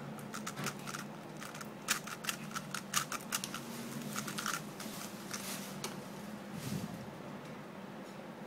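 A 3x3 speed cube being turned by hand: a run of quick plastic clicks and clacks as its layers are twisted, thinning out after about six seconds into quieter handling.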